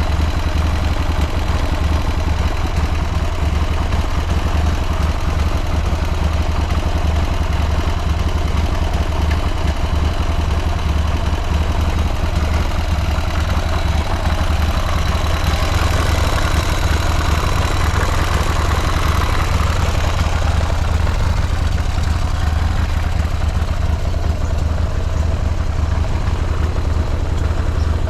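Buell M2 Cyclone's air-cooled 1203 cc V-twin idling steadily, with no abnormal noises.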